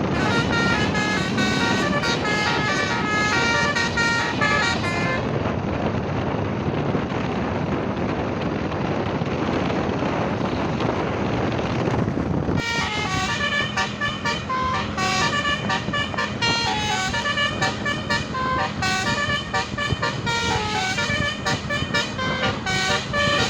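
Basuri multi-tone telolet bus horn playing a stepped melody, broken by about seven seconds of loud engine and road noise with no tones, after which the horn melody resumes about halfway through over a steady low hum.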